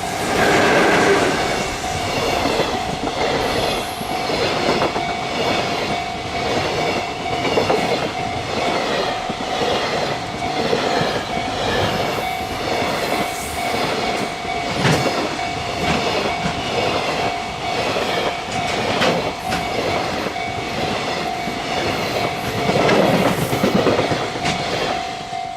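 Freight train wagons rolling past at close range, their wheels clacking over the rail joints in a fast, steady rhythm, loudest at the start and again near the end. The level crossing's warning bell rings on underneath.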